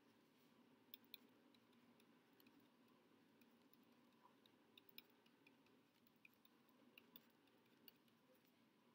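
Near silence: faint room tone with scattered, irregular light ticks of a stylus tapping a tablet as numbers are written.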